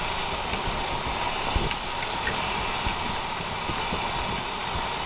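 Strong gusty wind rushing steadily over the microphone, with low buffeting thumps.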